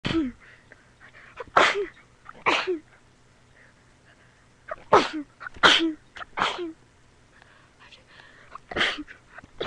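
A person in a rapid sneezing fit: about seven sharp sneezes in quick succession, coming in clusters, each ending in a short voiced 'choo'.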